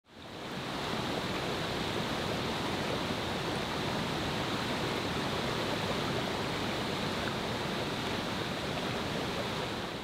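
Mountain stream water rushing over rocks: a steady wash that fades in over the first second and fades out at the end.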